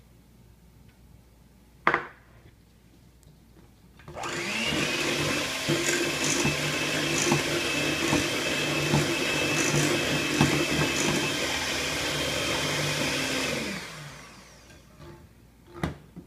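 Electric hand mixer running in a glass bowl of batter for about ten seconds, starting about four seconds in with a steady motor whine, then spinning down. A single sharp knock comes about two seconds in.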